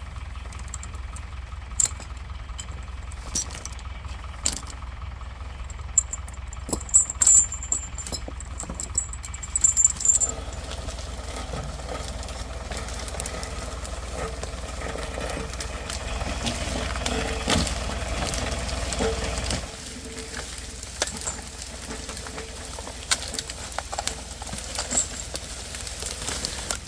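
Tractor engine running steadily, with sharp metallic clanks and rattles scattered over it. About ten seconds in, the engine grows louder with a steady whine. Around twenty seconds in, the engine sound cuts off abruptly while occasional clanks continue.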